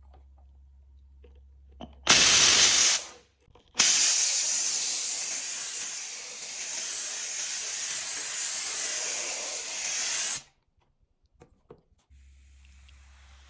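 Karcher SC1 EasyFix handheld steam cleaner releasing steam: a short hissing burst of about a second, then a longer steady hiss of about six seconds that cuts off sharply. A few faint ticks come before and after.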